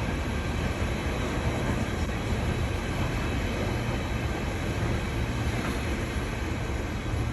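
Class 66 diesel-electric locomotive running steadily as it hauls an engineering train, its EMD two-stroke V12 engine giving a deep low drone over the rumble of the train.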